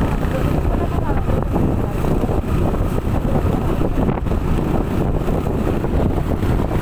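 Wind buffeting the microphone on a moving motorcycle, with the motorcycle's running and road noise underneath, steady throughout.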